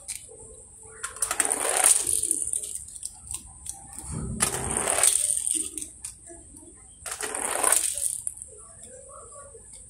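Small plastic toy cars rolling one after another down a plywood board ramp and across a concrete floor. There are three separate rolls, each lasting about a second.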